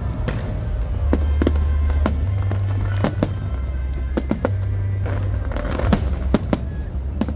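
Aerial firework shells bursting in a rapid series of sharp bangs over loud music with a heavy bass line, with two louder bangs about six seconds in.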